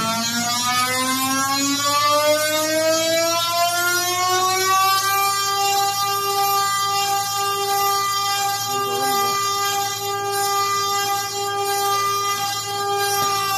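Drill bit sharpening machine's spindle motor whining as it runs. Its pitch climbs over the first five seconds as it speeds up, holds steady, then drops slightly near the end.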